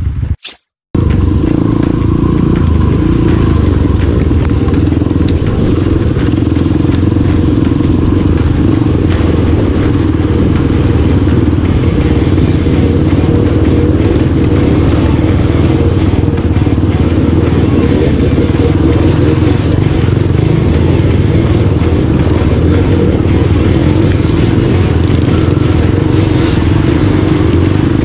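Dirt bike engine running steadily as the bike is ridden along a trail, heard from the rider's own bike. The sound drops out for a moment just under a second in, then carries on without a break.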